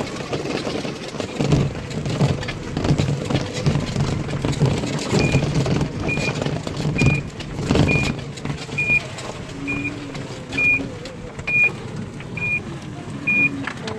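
Footsteps and handling knocks while walking on a gravel path, over a low rumble. From about five seconds in, a short high beep at one steady pitch repeats a little faster than once a second.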